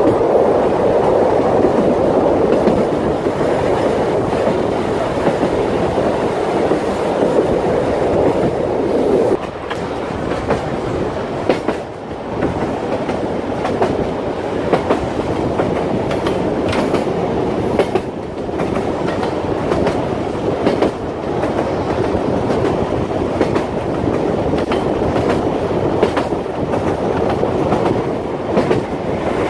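Narrow-gauge train rolling along, heard from an open coach window: a steady running noise with the wheels clicking over rail joints, the clicks coming more often in the second half.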